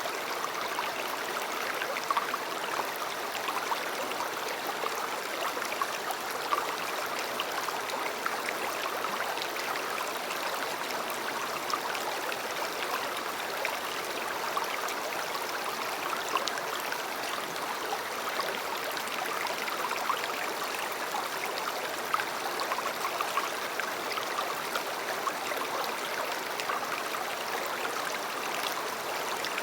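River water flowing steadily over stones, a constant rushing with many small splashes and gurgles.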